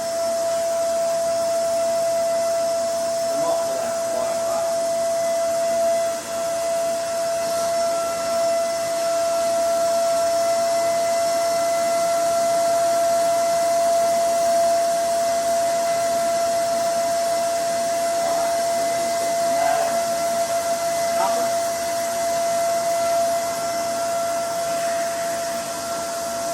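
A steady, unchanging motor whine at one pitch, over a constant rush of air or hiss.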